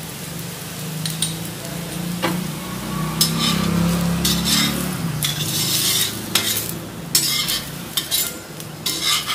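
Oil and butter sizzling under an onion paratha on a hot tawa, with a slotted metal spatula scraping and pressing against the bread and pan. The scraping strokes start about three seconds in and come often after that.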